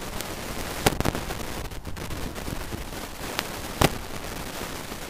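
A spade cutting into the ground to dig out a plug: a few sharp knocks, the two loudest about three seconds apart, over a steady hiss.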